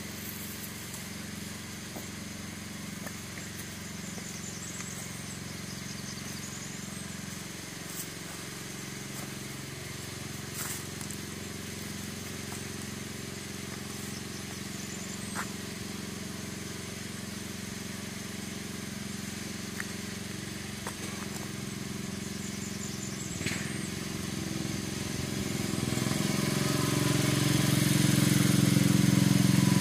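Sears Custom-7 lawn tractor's engine running steadily, faint at first and growing louder over the last several seconds as the tractor comes closer.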